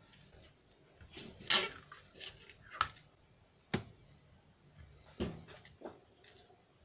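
Kitchen knife cutting the tough rind off a strip of pancetta on a cutting board: several short scrapes and knocks of the blade against the board, spaced about a second apart, the loudest about a second and a half in.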